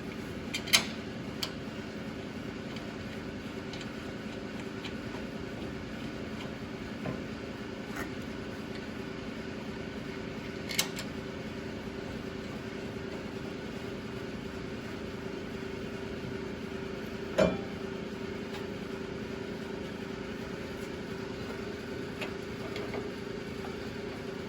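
A steady, low mechanical hum with a few sharp clicks and knocks over it, the loudest about a second in and another a little past the middle.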